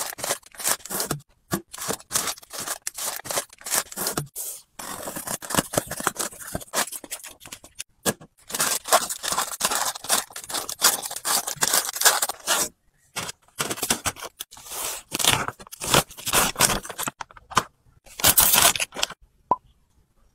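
Plastic snack wrappers crinkling and rustling as packets are handled and set into a plastic storage bin, with many sharp crackles and light taps throughout.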